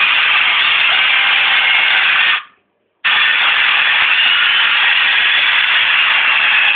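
Loud, steady hiss-like noise. It fades out about two and a half seconds in and snaps back half a second later.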